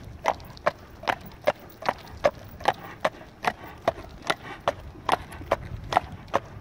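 Friesian stallion trotting on an asphalt street: a steady, even clip-clop of sharp hoof strikes, about two and a half a second.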